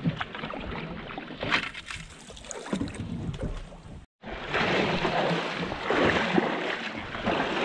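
Canoe paddling up a creek: the paddle dips and splashes in the water now and then. After a sudden cut a little past halfway, the water gets louder, splashing and swishing in surges as the canoe is waded and hauled through the shallow creek.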